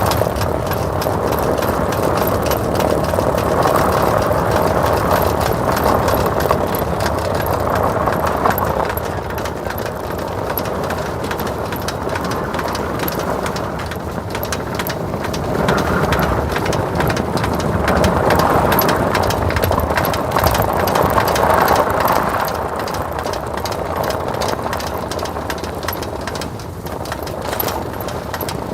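Vehicle with snow chains on its tyres driving over snow: the chains rattle in fast, continuous clicks over the running engine and the crunch of snow under the tyres, swelling louder twice as it passes.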